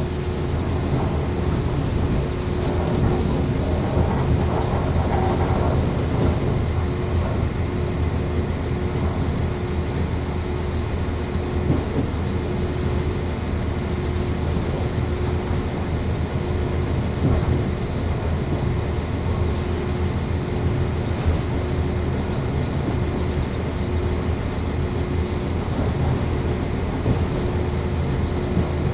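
Train running along the track, heard from inside the carriage: a steady rumble of wheels and running gear with a constant hum over it.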